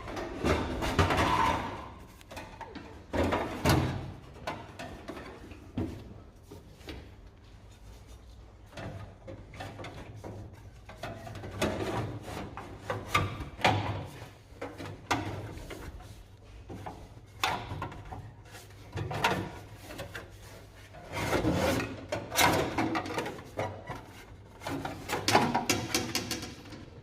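Irregular knocks, clunks and scraping from hand work on a truck: tools and parts being handled and moved. A faint low steady hum runs underneath.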